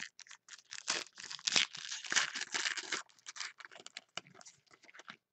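A trading-card pack's shiny wrapper being torn open and crinkled by hand, in a dense run of crackles that thins out after about three seconds.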